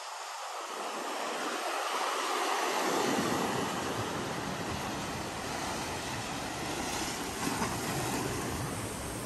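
Waves breaking and washing up a sandy beach: a steady rushing noise that swells and deepens about three seconds in.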